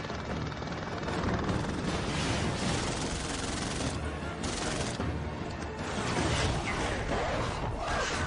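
Film sound mix of a helicopter gunship attack: sustained gunfire over helicopter noise, with music underneath.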